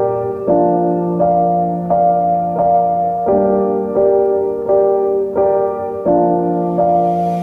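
Background music: a soft piano or electric piano playing sustained chords with evenly paced notes.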